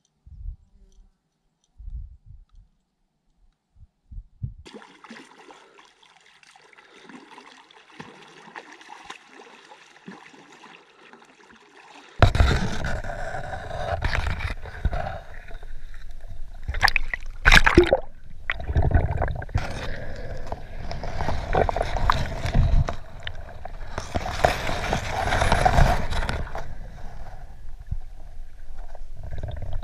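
Water gurgling and sloshing as heard by an underwater camera, muffled and rumbling, starting suddenly about twelve seconds in, with a couple of sharp knocks a few seconds later. Before that, near silence with a few faint thumps.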